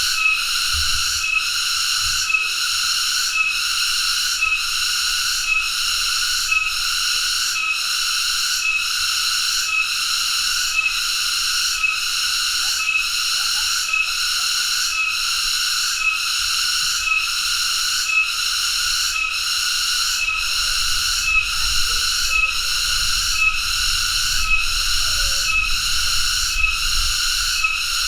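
Cicada (tonggeret) calling: a loud, high, ringing buzz that pulses at a steady, even beat without a break.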